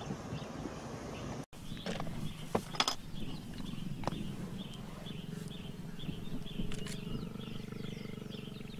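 A male lion growling low as he mounts a lioness to mate, with a small high chirp repeating about twice a second behind it.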